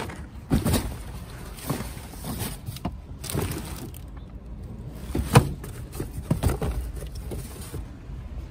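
Cardboard boxes being shifted and flipped over by gloved hands in a dumpster: irregular rustles, scrapes and knocks, the sharpest knock about five seconds in, over a low rumble.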